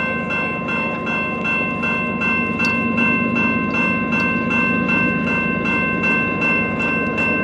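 Railway level-crossing bell ringing steadily at about three strokes a second, over the low rumble of an approaching diesel freight train.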